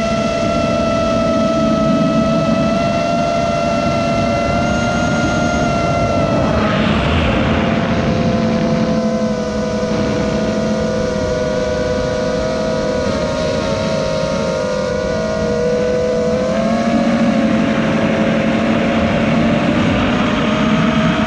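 FPV quadcopter's electric motors and propellers whining steadily, picked up by the camera riding on the drone, with air rushing past. The pitch sinks a little through the middle and climbs again near the end as the throttle changes, with a brief louder rush about seven seconds in.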